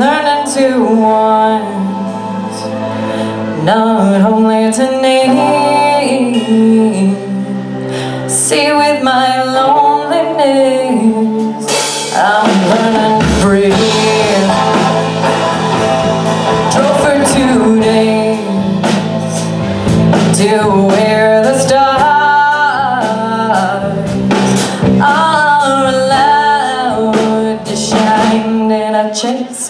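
Live indie pop band playing: a woman singing lead over electric guitar, electric bass and a drum kit, with the drums hitting much more densely from about twelve seconds in.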